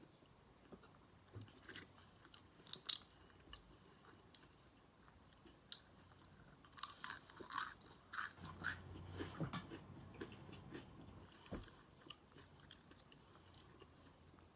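Close-miked eating: a person chewing and biting food, with a run of crisp crunches about seven to nine seconds in.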